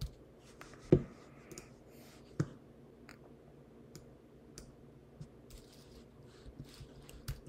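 Scattered clicks of a computer keyboard and mouse, irregular and light, with a few sharper taps about one second in, about two and a half seconds in, and just before the end.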